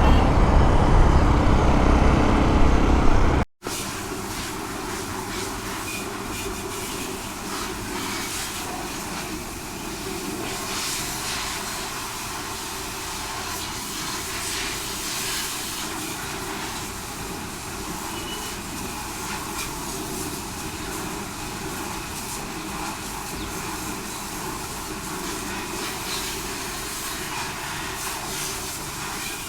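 Loud vehicle rumble that cuts off abruptly about three and a half seconds in, giving way to a steady hiss of vehicle and wind noise.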